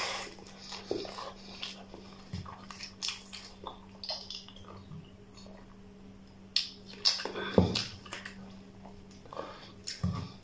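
Close-up chewing and wet mouth noises of a person eating rice and mutton curry by hand, short irregular clicks and smacks, over a steady low hum.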